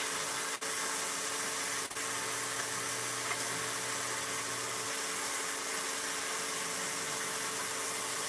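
Pieces of armadillo meat sizzling in a hot frying pan as they brown, a steady hiss, with a low hum underneath that drops out about five seconds in.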